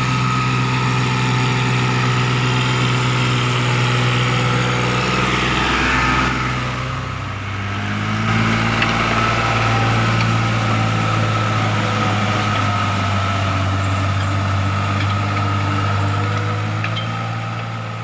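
Farm tractor's diesel engine running steadily while ploughing. About seven seconds in, the sound briefly dips and settles at a slightly lower pitch, then runs on steadily before fading near the end.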